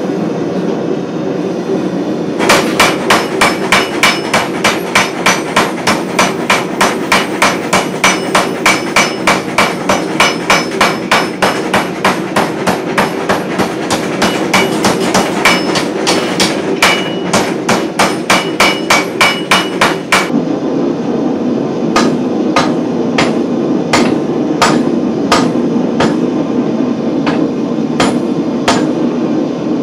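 Red-hot steel of a sword blade being forged under a power hammer: rapid, evenly spaced ringing blows, about three a second, over a steady rushing noise. After about twenty seconds it gives way to a hand hammer striking the hot blade on an anvil, slower blows about two a second.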